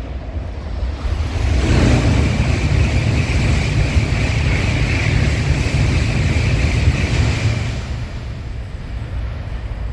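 An N700A Shinkansen passing through the station at speed without stopping: a loud rushing of wheels and air with a steady hiss over it. It builds about a second and a half in, holds, and dies away near the end as the train leaves.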